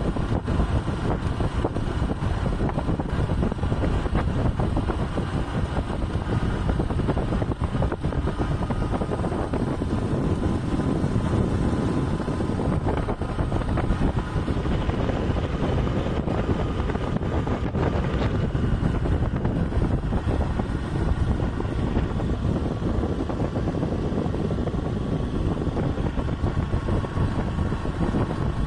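Motorcycle riding along at a steady speed: its engine note mixed with heavy wind rumble on the microphone, even and unbroken.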